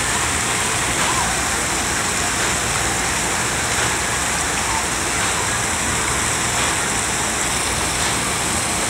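Steady rush of water spraying and splashing from splash-pad fountains, with indistinct voices mixed in.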